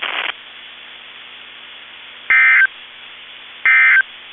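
Two short bursts of EAS digital data tones, the SAME end-of-message code that closes the test, each about a third of a second long and a little over a second apart. They sit over faint radio hiss and a low hum. Loud static cuts off just after the start.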